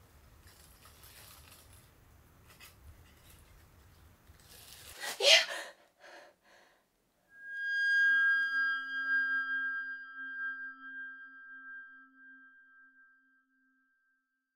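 Tissue paper crinkling as it is peeled back, with a sharp loud rustle about five seconds in. About two seconds later a single struck bell-like chime rings out and slowly fades over several seconds.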